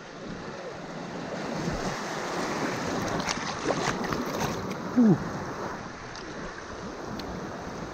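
Rushing, splashing river water around an inner tube riding through a shallow rapid, close to the microphone, building over the first few seconds. A brief sharp sound stands out about five seconds in.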